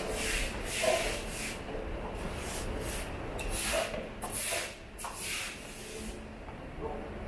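Footsteps: shoe soles scuffing on a hard walkway, about two steps a second, over a steady low rumble.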